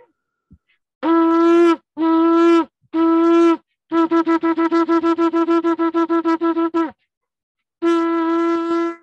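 Ram's-horn shofar blown on one steady note: three medium blasts, then a fast run of short staccato notes at about ten a second, then after a pause one long blast near the end. This is the shevarim-teruah call followed by a tekiah.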